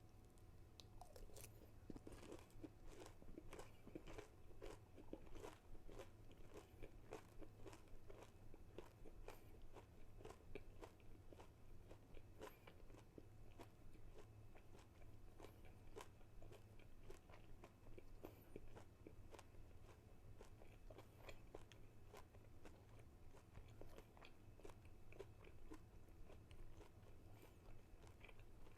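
Close-miked chewing of crispy-coated chicken nuggets: a quiet, continuous run of small crunches and mouth clicks, densest in the first few seconds.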